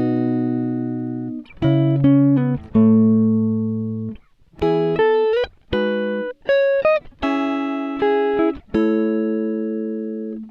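Instrumental guitar music: a slow melody of plucked notes and chords, each struck and left to ring out and fade before the next.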